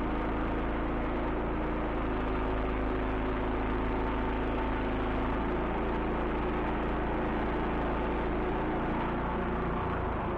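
Portable sawmill's engine running steadily, its pitch shifting slightly a few seconds in.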